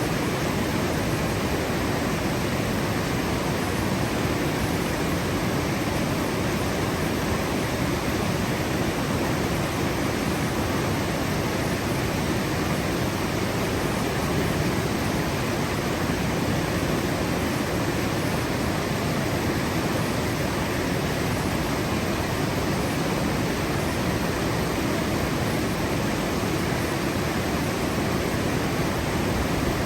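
Rushing water, a steady, even hiss with no change in level or pitch.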